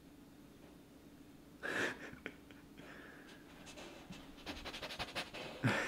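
Black Newfoundland puppy panting close to the microphone: quiet at first, with a brief louder breath about two seconds in, then quick short pants that grow louder near the end.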